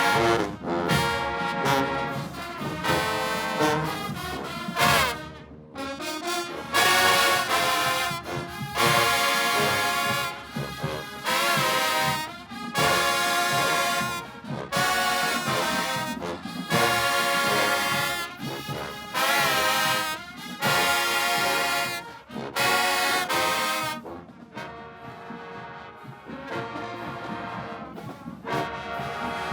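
Marching band brass section playing loud held chords in short phrases, dropping to a quieter passage near the end.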